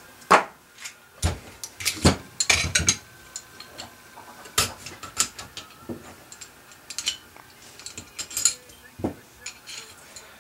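Metal parts of a Smith & Wesson PC1911 .45 pistol clicking and clinking as it is field-stripped, with slide, barrel and small parts handled and set down. The clicks are sharp and irregular, with a cluster about two to three seconds in and single clicks later.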